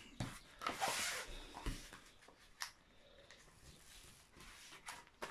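Rustling of a diamond painting canvas and its protective film as hands smooth it flat and handle a corner, loudest about a second in, with a few light clicks and taps.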